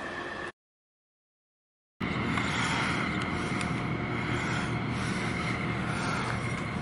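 Engines of a large container ship and its escort tug passing close by: a steady low rumble with a faint steady whine. It starts after about a second and a half of silence near the beginning.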